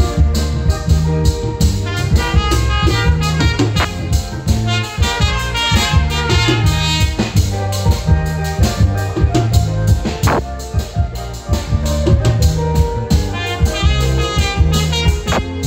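Live band playing an instrumental passage: trumpet lines over bass guitar, congas and drum kit, with a steady beat.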